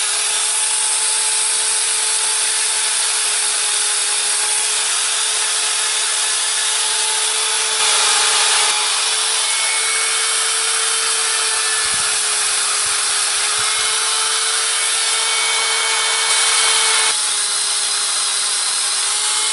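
Corded handheld rotary grinder running steadily with a high whine while its grinding stone sharpens the cutters of a chainsaw chain, metal grinding against the stone. The grinding gets louder for a moment twice, about eight and sixteen seconds in.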